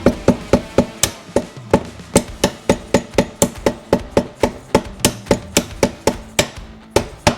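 Hammer blows struck in a fast, even rhythm, about four a second.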